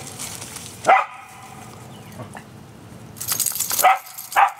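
A dog barks three times in short single barks: about a second in, then twice close together near the end. A short hissing rush comes just before the last two barks.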